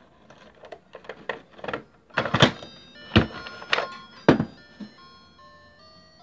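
Electronic jingle from a battery-powered musical carousel toy, played as held beeping notes, with a few loud knocks and thumps in the middle as the plastic toy is handled and set down.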